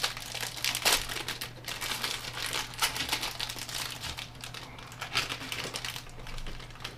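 Plastic snack wrapper crinkling and crackling as it is worked open by hand, a rapid, irregular stream of small crackles.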